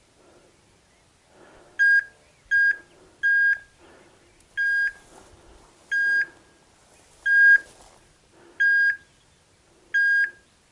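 A hunting dog's beeper collar in point mode: eight short, identical high beeps, the first couple close together, then steady at a bit over a second apart. The beeps signal that the German Shorthaired Pointer has stopped and is holding point. Faint rustling of grass can be heard between the beeps.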